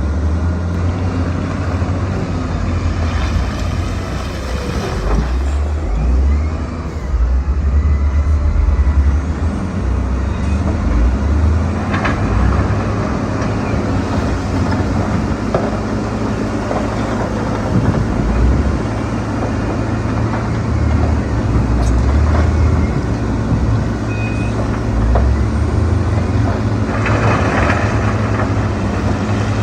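Diesel engines of earthmoving machines, a bulldozer and dump trucks, running under working load with a steady low drone that swells and eases. A few sharp knocks come through, one about twelve seconds in and another about twenty-two seconds in.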